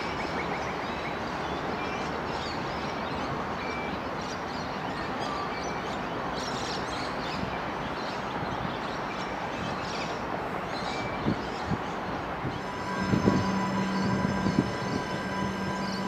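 Adelaide Metro 3000-class diesel railcars running along the line, a steady noise of engines and wheels on rail. Near the end a steady hum sets in, with a few thumps.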